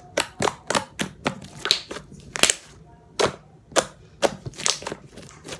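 Thick, glossy, fluffy slime squeezed and pressed by fingers on a tabletop, giving sharp, irregular popping clicks about twice a second.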